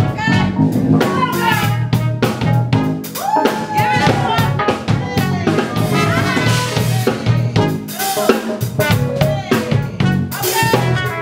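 Live band playing: drum kit with snare and bass drum hits in a steady beat, electric bass underneath, and a lead melody line that glides and bends in pitch over the top.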